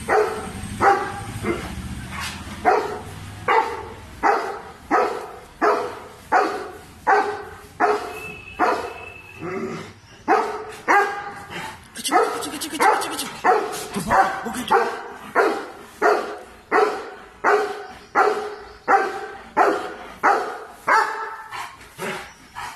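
Doberman barking over and over at a monkey, a steady string of loud barks at about three every two seconds: guarding barking at an intruder.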